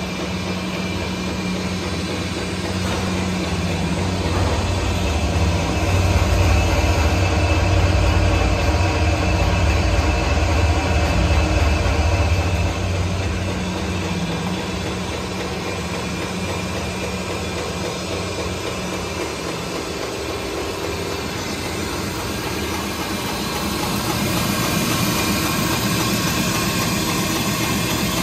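Hollymatic 180-A stainless steel mixer grinder running, a steady electric-motor hum that swells louder for several seconds in the middle and again near the end.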